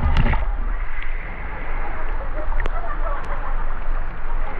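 Steady rushing of river water with a low rumble of wind buffeting the microphone, and a few sharp clicks.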